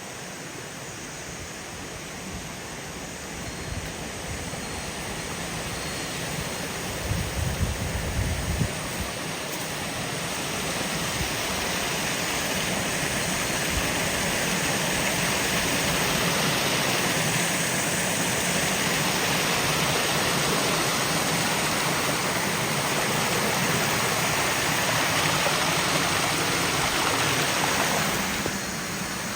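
Rushing water of a waterfall, a steady roar of noise that grows louder over the first dozen seconds and then holds, easing slightly near the end.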